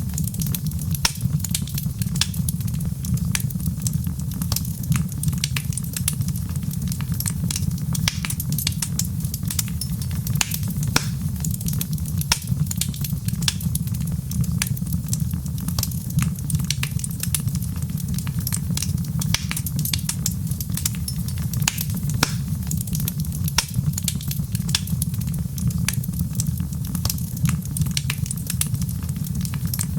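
Wood fire crackling: many irregular sharp pops and snaps over a steady low rumble.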